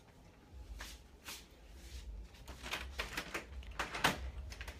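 Handling noise from a phone being carried: a low rumble with a few soft knocks and rustles at uneven intervals, the sharpest about four seconds in.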